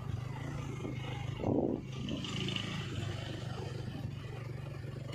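Street ambience dominated by a steady low hum from an idling vehicle engine, with a brief louder rumble about a second and a half in.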